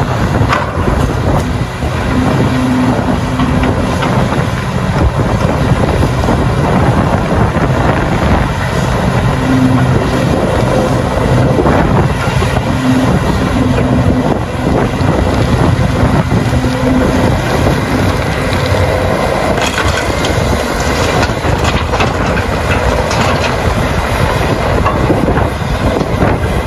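Large hydraulic mining excavator's diesel engine working under load, its pitch rising and falling as it digs, with rock and earth crunching and clattering as the bucket scoops and loads a dump truck.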